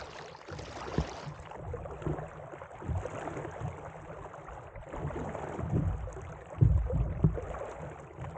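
Kayak paddling: the paddle dipping and water splashing and lapping around a folding kayak, with a few low thumps in the second half.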